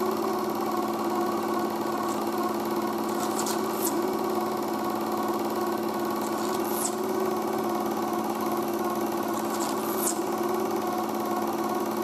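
Super 8 film projector running with a steady mechanical hum and whir, and a short high squeak about every three seconds.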